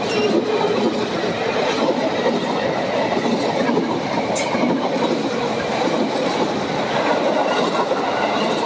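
KRL electric commuter train running past close by: a steady rumble of its wheels on the rails. Three brief high-pitched hisses stand out: one at the start, one just under two seconds in, and one about four and a half seconds in.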